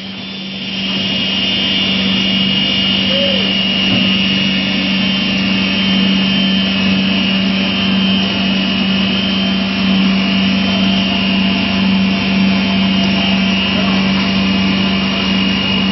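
Cutting saw of a PU sandwich panel production line running through a foam-cored panel: a steady low hum and a high whine over rough rasping noise. It gets louder about a second in.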